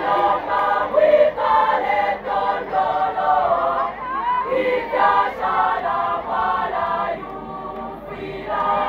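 Parish youth choir singing in harmony, a quick rhythmic run of short chords that softens briefly near the end.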